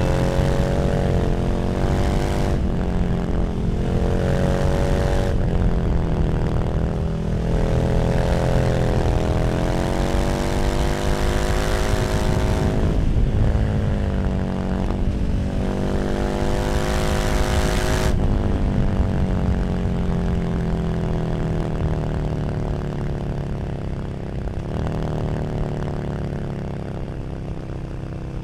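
KTM 1290 Super Duke R's V-twin engine through an Arrow slip-on exhaust, pulling hard as it climbs in pitch through several gears, with a drop at each shift. After about two-thirds of the way through, the throttle is rolled off and the engine note falls slowly as the bike slows.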